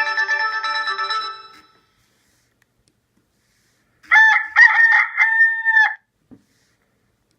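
Nokia 6021 ringtones: a polyphonic ringtone melody ends and fades out within the first second and a half. After a pause of about two seconds, a recorded rooster crow tone plays for about two seconds.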